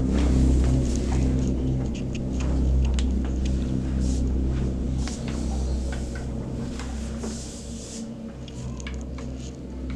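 Background music: low held notes that shift in steps, with scattered faint clicks.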